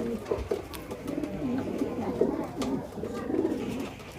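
Racing pigeons cooing in a loft, with repeated low warbling coos overlapping one another and a few sharp clicks among them.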